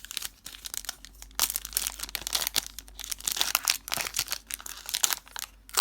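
Foil wrapper of a trading-card pack crinkling and tearing as it is pulled open by hand: a run of sharp, irregular crackles, heavier from about a second and a half in.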